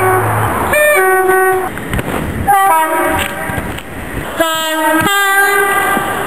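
A British train's two-tone horn sounding three times: about a second in, briefly around two and a half seconds, and a longer blast from about four and a half seconds that steps from one note to the other. The noise of the train runs underneath.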